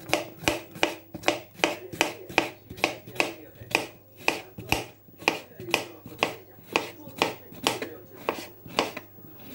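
Kitchen knife slicing a halved cucumber on a cutting board, a steady rhythm of sharp chops about three a second.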